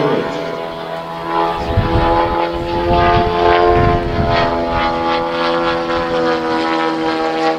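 Large RC model biplane's propeller engine running at high power during its takeoff roll, a steady drone. Low rumbling noise comes and goes between about two and four and a half seconds in.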